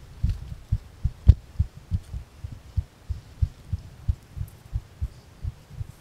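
Dull low thumps, about three a second and unevenly spaced, with one louder jolt a little over a second in: footfalls and jostling of someone walking a rocky mountain trail, carried through a body-worn camera.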